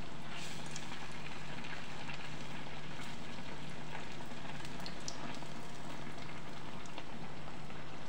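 Malpua batter sizzling and bubbling as it deep-fries in hot ghee in a kadhai, a steady crackling fry, with a few light clicks of a steel slotted spoon basting it and a steady low hum underneath.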